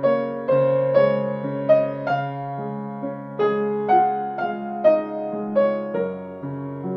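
Background piano music: a slow, gentle melody of single notes struck about twice a second over held low notes.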